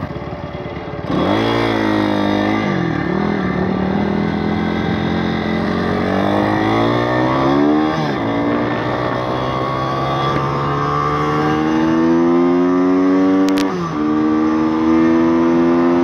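Single-cylinder four-stroke YX160 engine of a pit bike accelerating hard through the gears. It climbs in pitch, drops back at each of about three upshifts, and is running high and steady near the end.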